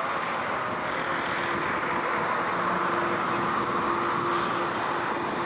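Airbus A350-900 airliner's Rolls-Royce Trent XWB turbofans running as it rolls along the runway: a steady rush of jet noise with a faint, even whine.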